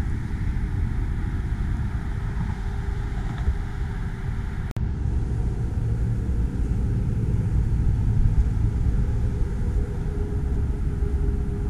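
Steady low rumble with the faint, steady whine of an Axial SCX10 scale RC crawler's small electric motor and gearbox as it crawls over dirt and rocks. The sound cuts out for an instant about five seconds in.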